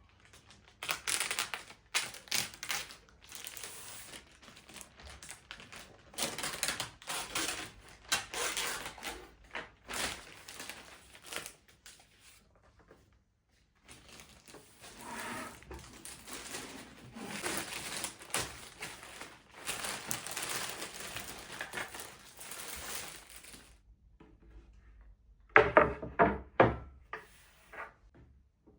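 Objects and packaging being handled by hand: irregular rustling and crinkling with scattered light clicks, then a few louder knocks near the end.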